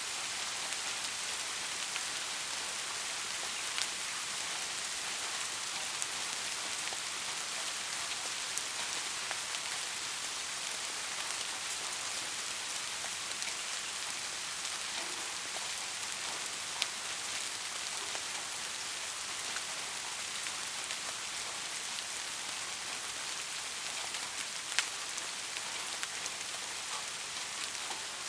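Steady rain falling in an even hiss, with a few louder single drops ticking now and then.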